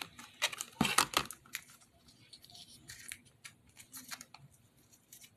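Small plastic miniature toy pieces and their packaging handled by hand: a few sharp crinkles and light clicks in the first second and a half, then faint scattered ticks of fiddling.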